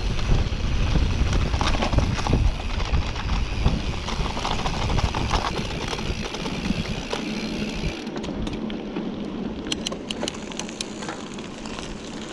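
Rockrider XC100 mountain bike ridden fast over a rough dirt track: a heavy rumble of wind on the microphone, with the tyres and frame rattling. About eight seconds in it eases to a quieter roll on a smoother surface, with a few sharp clicks.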